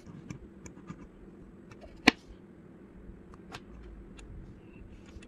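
Plastic Lego bricks clicking and tapping as a built model is handled on a tabletop, with one sharp knock about two seconds in.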